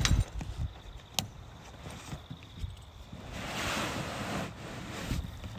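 Canvas tent fabric rustling as it is handled and a strap is clipped on, with one sharp click about a second in.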